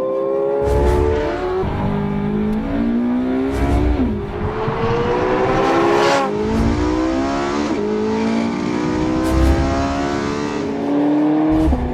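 Porsche 918 Spyder's V8 under hard acceleration, its pitch climbing through each gear and dropping sharply at a quick upshift, about five times.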